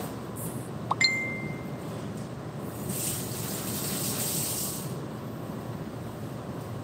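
A sharp metallic clink with a short ringing tone about a second in. Then water gushes briefly from a kitchen tap for about two seconds, over a steady low background rumble.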